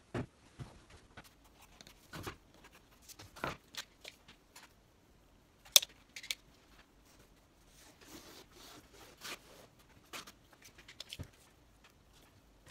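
Faint, scattered clicks, taps and rubbing from tools and boards being handled.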